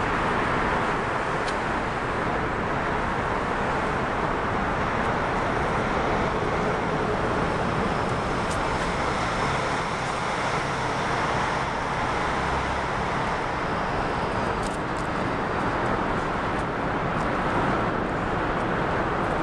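Steady traffic noise: a continuous rush of passing road vehicles, with a few faint clicks late on.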